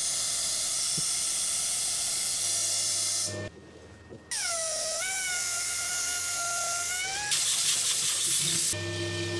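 Compressed-air blow gun hissing at a lathe. It stops briefly about a third of the way in, then comes back with a slightly rising whistle for about three seconds. Near the end a steady hum sets in.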